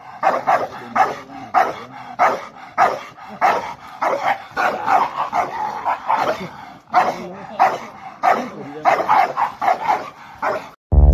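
Dogs barking rapidly and aggressively at each other, two to three barks a second with a short lull midway. The barking cuts off just before the end, when electronic music starts.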